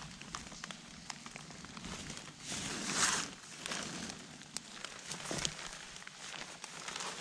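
Crackling and rustling of dry leaves, twigs and gravel on the forest floor being disturbed, with many small sharp clicks and a louder rustle about three seconds in.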